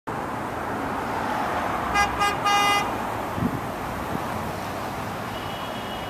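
Steady street traffic noise, with a car horn tooting three times about two seconds in: two short beeps and a slightly longer one.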